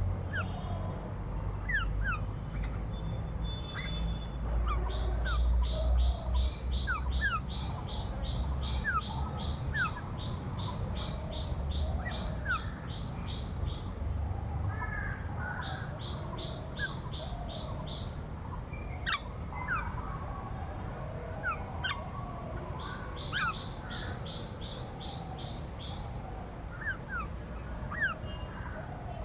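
Several wild birds calling and singing: runs of fast, evenly repeated high notes, three times, mixed with short sliding chirps and a few sharp calls. A low rumble underlies the first several seconds.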